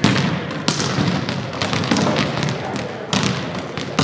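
Volleyball rally: several sharp hits of the ball echoing around a sports hall, with players' calls between them.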